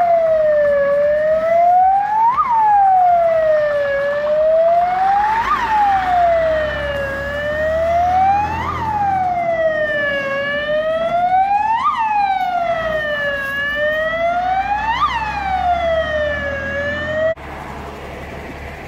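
Fire engine siren wailing in slow rising and falling cycles, about three seconds each, as the Jelcz 004 fire truck pulls away on an emergency call; the siren stops abruptly near the end.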